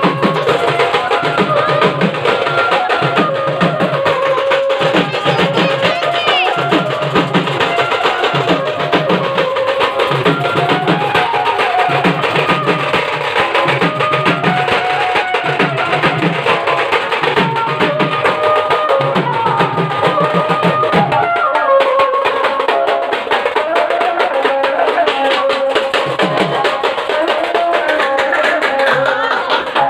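Dhol barrel drums beaten in a fast, steady rhythm, with a melody playing over them. The drum beat mostly drops out a little over two-thirds through, leaving the melody with a few scattered drum beats.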